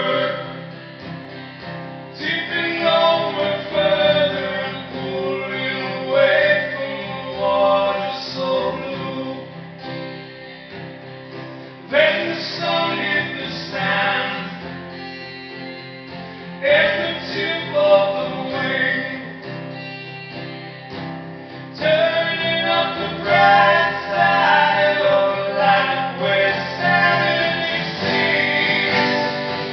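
Live song: men singing over guitar accompaniment, the vocal phrases coming in and dropping away to quieter instrumental stretches between them.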